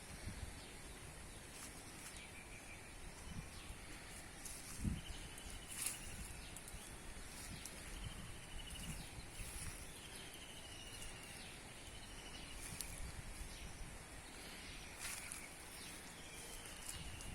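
Forest ambience: a small bird repeating short trilled calls every second or two over a steady high-pitched insect drone and faint background hiss. A few sharp clicks and one low thump about five seconds in.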